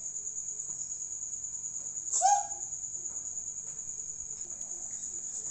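Insect trilling, in the manner of a cricket: a steady, high-pitched chirr that pulses rapidly without a break. A short voice sound cuts in briefly about two seconds in.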